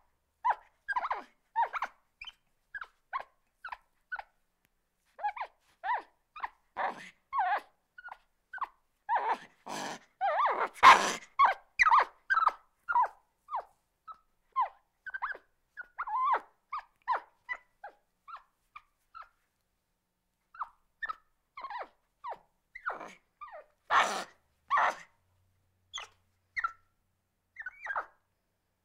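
Agitated monkey calling in a rapid string of short squeaks and chirps, with louder, harsher screeches about ten seconds in and again near the end.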